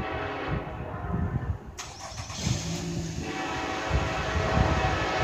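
Diesel locomotive air horn sounding a sustained blast as the train approaches, growing louder near the end, over low rumble.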